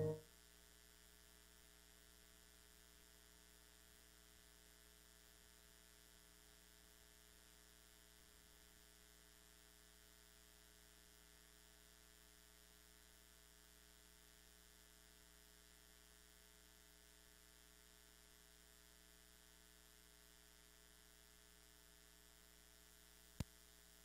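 Near silence with a faint steady electrical hum from the sound system. The piano accompaniment cuts off right at the start, and there is a single click near the end.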